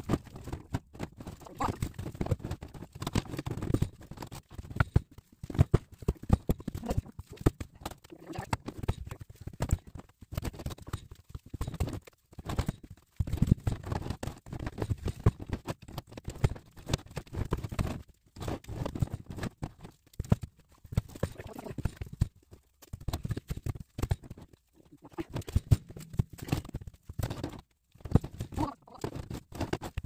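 Irregular knocks and thumps of split firewood sticks being carried, dropped and stacked, mixed with footsteps, with a few short pauses.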